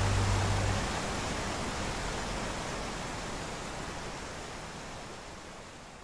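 Rainforest stream rushing over rocks: a steady, even hiss of running water that fades out gradually. A low steady hum stops under a second in.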